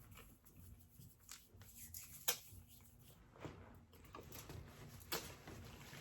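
A person eating close to the microphone: soft chewing and wet mouth clicks, with a sharper click about two seconds in and another about five seconds in.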